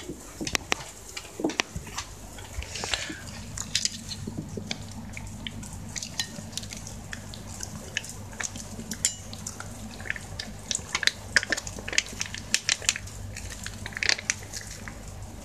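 Wet dog food being squeezed and scraped out of a pouch into a stainless steel bowl: many small clinks and scrapes against the metal bowl, over a steady low hum.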